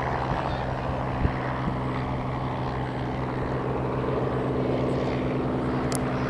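Klemm L-25H ultralight replica's piston engine and propeller droning steadily in flight as the monoplane banks and turns, with a short sharp click about a second in.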